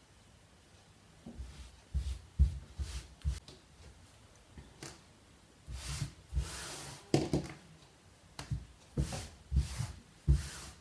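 Hands patting, smoothing and folding fabric and batting on a tabletop: a string of soft thumps and taps, with a longer rustling slide of cloth about six seconds in.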